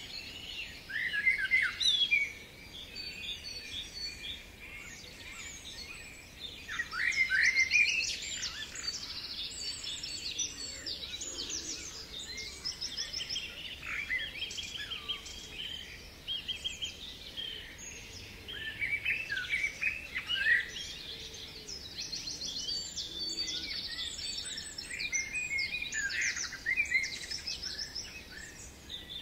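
Several songbirds singing at once, overlapping chirps, slurred whistles and quick trills, with louder bursts near the start and about seven seconds in.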